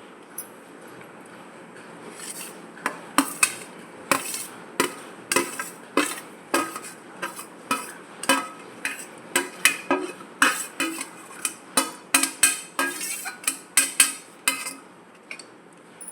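A metal spoon stirring wheat rava in a metal cooking pot, clinking and scraping against the pot's sides in a run of irregular ringing strokes, about one to two a second. The strokes start about two and a half seconds in and stop near the end.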